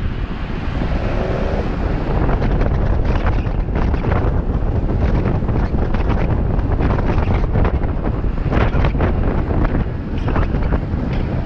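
Strong wind buffeting the microphone at downhill longboarding speed, over a steady rumble of skateboard wheels rolling on asphalt, with brief harsher rasps now and then.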